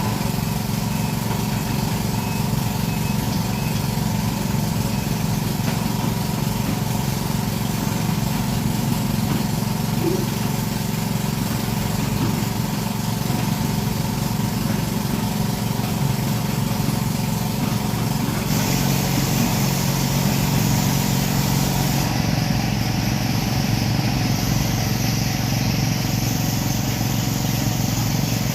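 Hydraulic excavator's diesel engine running steadily. The high hiss shifts abruptly about two-thirds of the way through.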